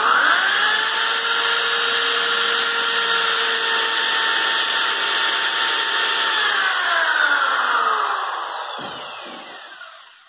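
Electric drill motor running steadily at full speed for about six seconds, then released and winding down, its whine falling in pitch and fading over the last few seconds.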